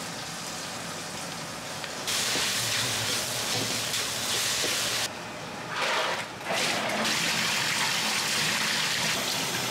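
Kitchen sounds in quick cuts: noodles bubbling in a pot of boiling water, then fried rice being tossed and stirred in a wok with a metal ladle, then tap water gushing into a bucket while hands work something in the water.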